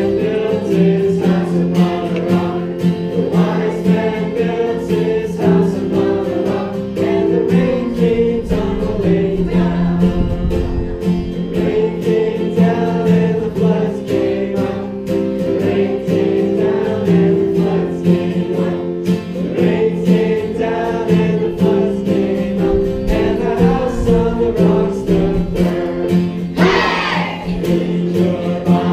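A group of voices singing a song together with music, held notes running throughout. A brief high-pitched squeal rises near the end.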